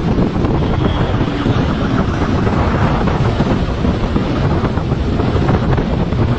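Steady, loud wind rush buffeting the microphone of a camera on a motorcycle riding fast, with the motorcycle running underneath.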